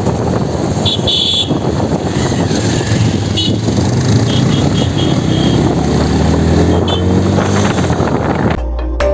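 Road-vehicle engine running under heavy wind and road noise, its pitch rising as it speeds up. It cuts off suddenly near the end and background music starts.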